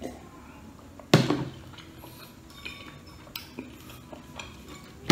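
Tableware knocking on a tiled table: a sharp, loud knock about a second in, probably the plastic cup being set down, a second loud knock at the very end, and light clicks of dishes and skewers between.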